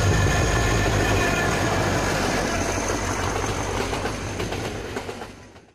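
A passenger train hauled by the T678.0 diesel locomotive running past: a steady low drone with rolling noise, fading out over the last second and a half.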